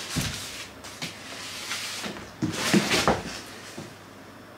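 Cardboard boxes, each holding a heavy LiFePO4 battery cell, being pulled out of a carton and set down on a tile floor: cardboard rustling and scraping with a few dull knocks, the loudest cluster about three seconds in.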